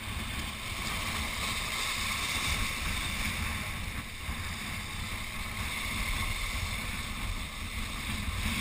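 Wind buffeting the microphone over the steady wash of waves breaking against jetty rocks.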